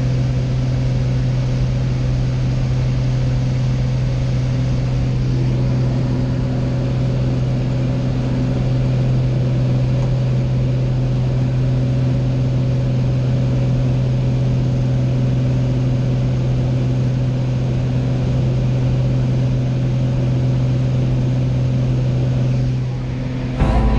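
Single-engine propeller plane's piston engine and propeller droning steadily, heard from inside the cabin during takeoff and climb-out. A sharp click near the end.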